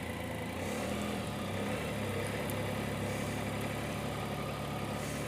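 Can-Am Spyder three-wheeled motorcycle's engine running steadily at low revs, getting slightly louder about a second in.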